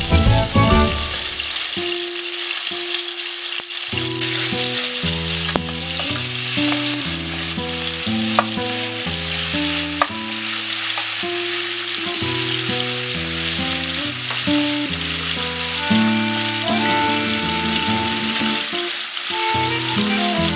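Chicken pieces sizzling steadily in hot oil in a nonstick frying pan, with a couple of sharp clicks midway as a wooden spatula turns them. Background music with a simple melody runs underneath.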